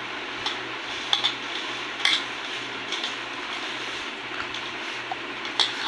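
Hands squelching and turning oily raw mango pieces coated in spice powder in a steel pot while mixing mango pickle, a steady wet rustle with a few light knocks against the pot.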